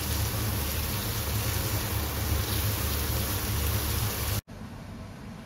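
Bell pepper strips sizzling in oil in a frying pan as they are stirred: a steady hiss over a low rumble. It cuts off abruptly a little over four seconds in, leaving quiet room tone.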